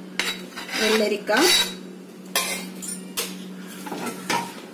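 A steel spoon clinking and scraping against a stainless-steel mixing bowl and plate, about five sharp metal clinks spread over a few seconds.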